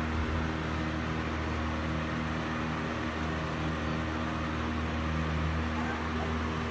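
A steady mechanical hum with a constant low drone and a fainter higher tone over a hiss.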